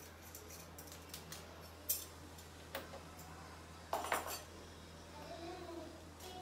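Steel kitchen utensils clinking against metal cookware: a few scattered sharp clinks, the loudest about four seconds in with a short ring.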